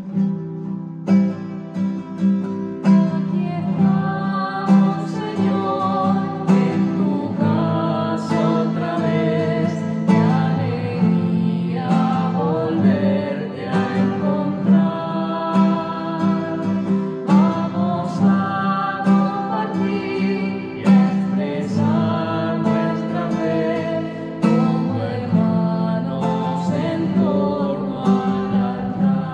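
Song played on acoustic guitar with a singing voice.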